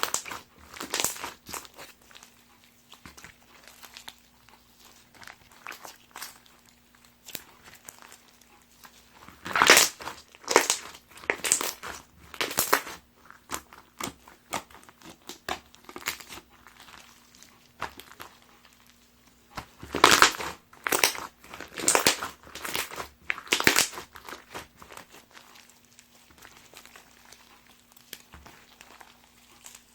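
Pink slime packed with pieces of packing foam being squeezed, pressed and broken apart by hand, giving irregular crunching and crackling. The crackles come thickest about ten seconds in and again about twenty seconds in.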